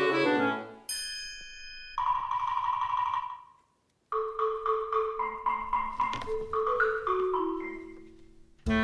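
Light instrumental background music with bell-like mallet-percussion notes, breaking off for a moment about four seconds in before the melody carries on.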